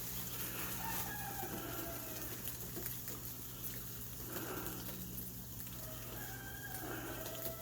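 Outdoor HVAC unit giving a steady low electrical hum with power restored, not starting up, which the owner puts down to it being too hot to start back up. A rooster crows several times in the background.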